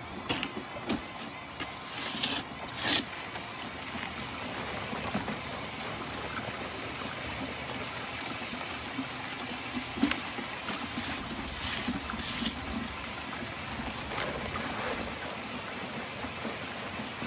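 Water spraying from a hose nozzle onto wet sand on a mesh screen and draining through into a funnel: a steady rushing hiss. A few brief knocks in the first three seconds and one about ten seconds in.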